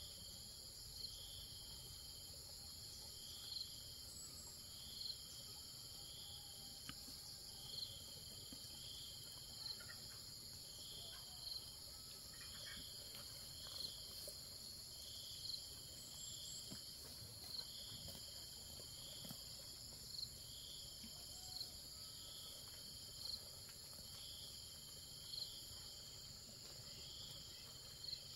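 Insects shrilling steadily in a high, even chorus, with a short call repeating about every two seconds.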